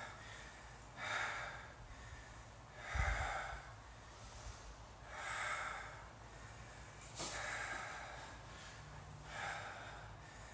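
A man breathing hard from exertion, with a loud breath about every two seconds, and a dull bump about three seconds in.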